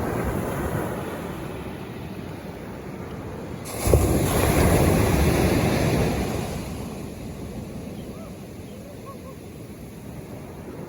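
Ocean waves washing onto the shore: one surge at the start, then a louder wave breaking about four seconds in that fades away over a couple of seconds.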